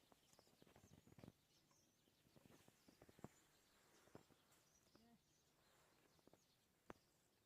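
Near silence: faint outdoor ambience with scattered light clicks and a few faint high chirps.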